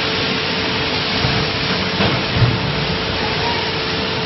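PS foam forming and cutting machine running: a steady, hissing mechanical noise over a constant hum, with a soft knock about two and a half seconds in.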